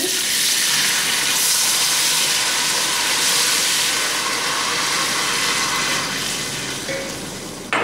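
Water poured into a pot of hot oil with fried onions and spices, setting off a loud sizzling hiss of steam that starts at once and slowly dies away as the oil cools, with a sharp click near the end.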